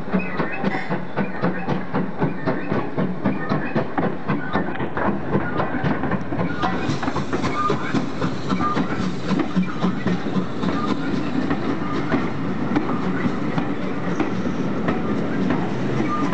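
A GWR tank steam locomotive and its train of coaches passing close by at low speed, with a steady rhythm of sharp beats at about two a second.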